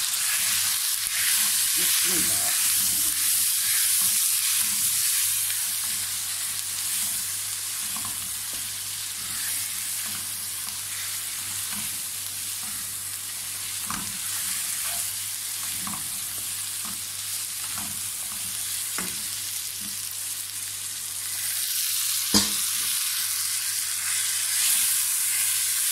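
Meat pieces and ground spices frying in oil in a nonstick karahi, a steady sizzle, while a silicone spatula stirs them, scraping and tapping the pan. One sharper knock comes about twenty-two seconds in.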